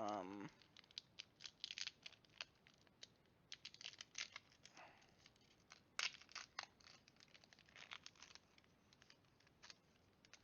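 A foil Pokémon booster pack being torn open and crinkled by hand: a string of short, sharp crinkles and rustles, with one sharper crackle about six seconds in.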